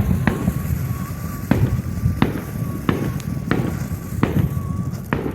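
Fireworks going off: a string of sharp bangs, about one every half second to second, over a steady low rumble.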